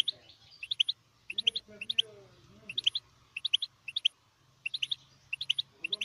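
Goldfinch mule (goldfinch hybrid) chirping: quick groups of three or four high chirps, repeated about every two-thirds of a second.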